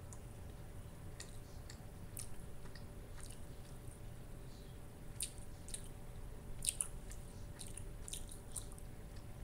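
Someone chewing a microwaved Tofurky deli slice with her mouth closed: soft, irregular wet clicks and smacks, with a few sharper ones a little past halfway.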